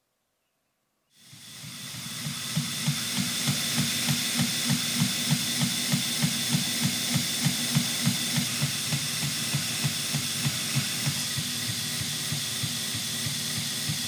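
Belt grinder running with a knife blade held against the abrasive belt on a waterfall platen: a steady hiss of steel being ground, with a regular tick about three times a second. The sound fades in about a second in.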